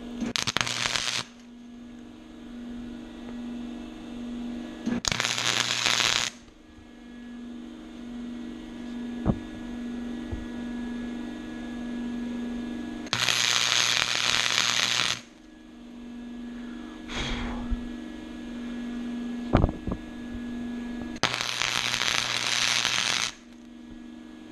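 Flux-core wire welder laying tack welds on 1/8-inch steel: four bursts of crackling arc, each one to two seconds long, with a steady hum between them. The crackle spatters heavily because the tube is painted, not clean bare metal.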